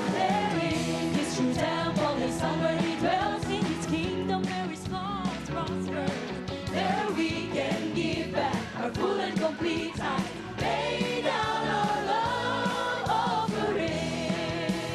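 Christian worship song: voices singing long, wavering held notes over full band accompaniment.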